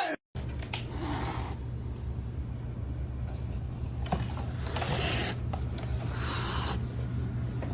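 A cat hissing: three short hisses about a second, four seconds and five and a half seconds in, over a steady low hum.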